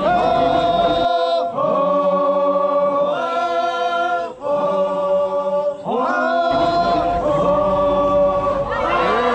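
A group of voices chanting in unison, holding long steady notes that step up and down in pitch every second or so.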